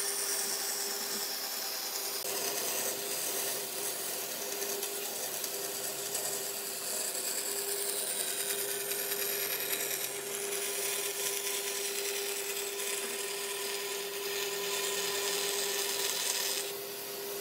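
Electric power tool running steadily against wood: a constant motor hum with a hissing, rasping noise of the wood being worked, easing off briefly near the end.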